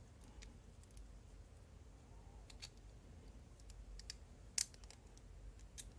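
Faint, scattered clicks and taps of small pocket-knife parts being handled and fitted together: the steel liner and plastic handle scale of a Kershaw 1620ST. One sharper click about three-quarters of the way through.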